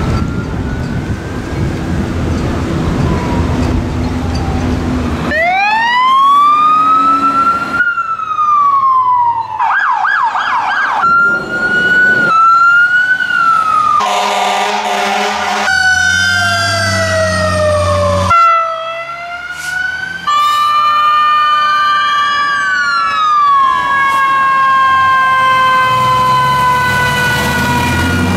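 Wind and water noise for the first few seconds, then a run of fire-truck sirens cut one after another: a wail rising, a fast yelp, a horn blast, and several wails falling in pitch.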